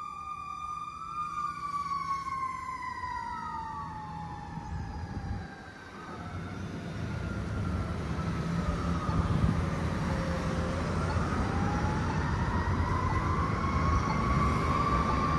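A fire engine's siren wailing as the 2019 Sutphen Monarch pumper drives away, its rising and falling tone growing fainter. From about six seconds in, passing cars and a pickup truck rise over it with a steady tyre-and-engine rumble, the siren still faint underneath.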